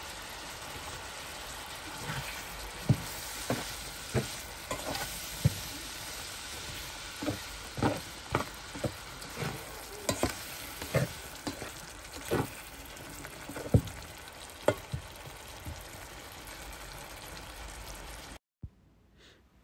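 Egg curry (dim bhuna) gravy simmering in a pan: a steady sizzle with irregular bubble pops, about a dozen of them, then it cuts off suddenly near the end.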